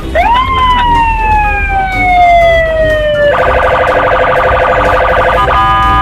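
Police car siren: one wail that rises quickly and then falls slowly, switching about three seconds in to a rapid pulsing warble that breaks off briefly near the end, over a low rumble of traffic.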